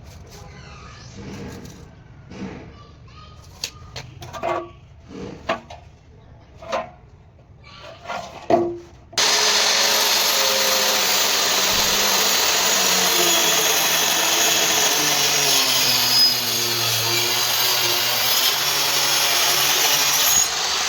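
A handheld electric cutter machine cutting through a wooden flush door, starting abruptly about nine seconds in and running loud and steady with a high whine, trimming the door to size. Before it starts there are quieter scattered knocks and low voices.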